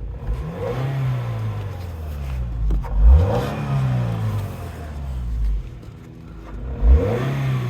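Scion car's engine revved three times. Each time the pitch jumps up quickly, then falls slowly back toward idle.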